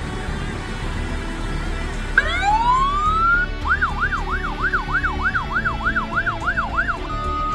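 Fire truck's electronic siren over a steady low hum. About two seconds in it winds up in a rising wail, then switches to a fast yelp of about three sweeps a second. Near the end it changes to a steady high tone, the start of a hi-lo pattern.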